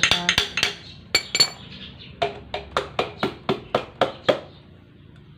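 Metal hand tool clinking against the nuts and studs of a motorcycle engine's cylinder block as it is fastened during a top-end rebuild: a few quick clinks, then an even run of about four ringing clinks a second that stops shortly before the end.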